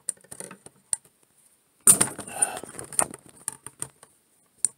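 Handling noise from fingers on the camera as it is being repositioned: scattered clicks and knocks, with a louder rubbing and scraping burst about two seconds in that lasts about a second.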